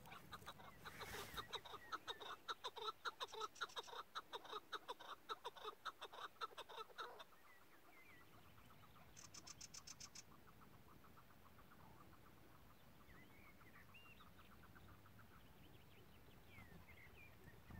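Chukar partridge calling: a rapid, even run of clucking notes, about four a second, that stops about seven seconds in. A brief high rattle follows a couple of seconds later, and faint small-bird chirps come near the end.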